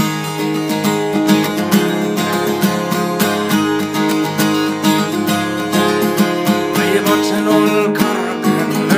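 Instrumental break in a folk ballad: acoustic guitar strummed in a steady rhythm, with no singing.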